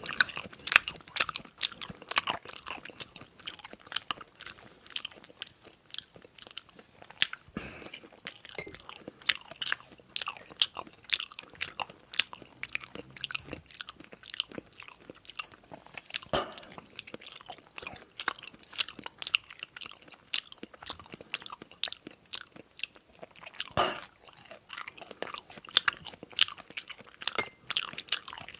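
Close-miked eating sounds: chewing and crunching food, a dense run of short sharp clicks with a few louder crunches about a third, halfway and near the end.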